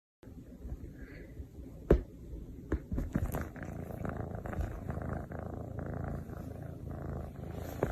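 A cat purring steadily close to the microphone, with a few sharp knocks over it, the loudest about two seconds in.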